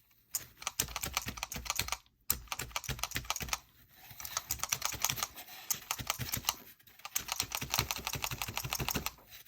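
Felting needles stabbing rapidly and repeatedly into wool felt, a fast run of sharp ticks like typing. It comes in three bursts with short pauses between them.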